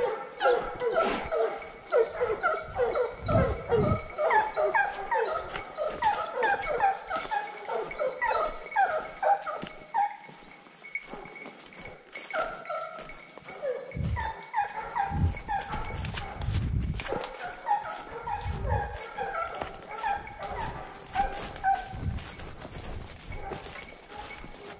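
A pack of Fauve de Bretagne scent hounds giving tongue on a roe deer's line: many overlapping yelping bays, dense for the first ten seconds, easing off briefly, then picking up again. Low thuds and knocks come in now and then, heaviest in the second half.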